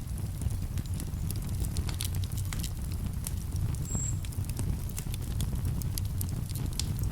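Wood campfire crackling, with irregular sharp pops and snaps over a low steady rumble. A brief high whistle comes about four seconds in.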